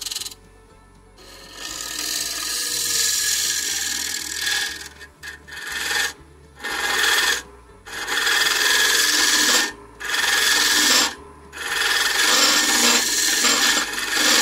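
A hollowing scraper cutting inside a small box elder vase spinning on a wood lathe: a rasping scrape in about six passes, broken by short gaps as the tool is eased off. This is the smoothing scrape of the inside bottom, wall and neck that cuts down on sanding.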